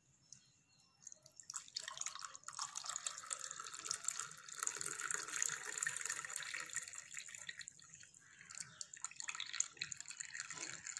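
Hot hibiscus tea strained into a glass, a steady splashing pour that starts about a second and a half in and stops near the end.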